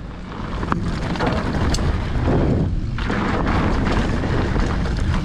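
Wind buffeting the rider's microphone over the rolling noise of mountain bike tyres on a dirt trail at speed, with a couple of sharp clicks from the bike in the first two seconds. It gets louder about two seconds in.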